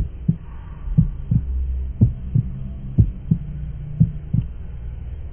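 Heartbeat, a double lub-dub thump about once a second over a low steady hum.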